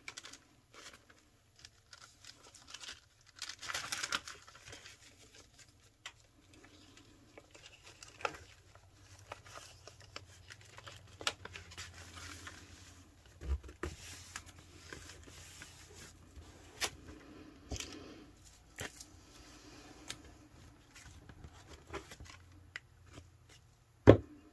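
Paper envelopes being handled, folded and slid into one another on a table: scattered rustling, crinkling and small taps. There is a low knock about halfway through and a sharp thump near the end.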